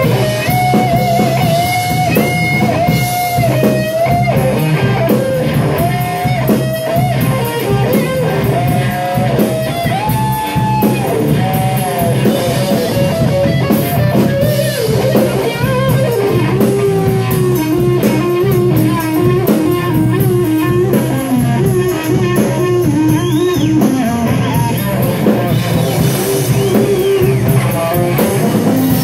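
Live blues-psychedelic rock trio playing an instrumental passage: electric guitar lead with long held, bending notes over bass and drums, the lead moving down to a lower register about halfway through.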